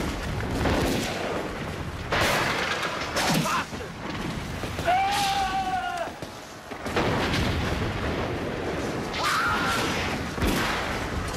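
Battle sound effects: repeated booms and gunshots, one every second or two, with men yelling over them; one long yell about five seconds in.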